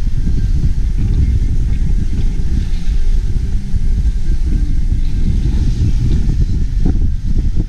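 Wind buffeting the camera's microphone on a sailing yacht under way: a loud, gusty low rumble that rises and falls unevenly, with the hiss of the water along the hull beneath it.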